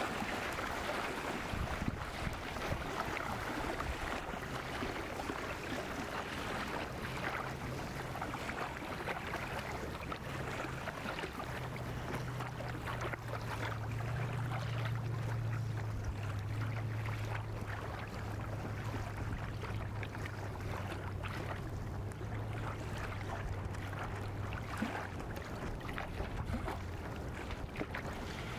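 Outdoor wind on the microphone over open water, with a low steady motor drone that swells about halfway through and fades out near the end.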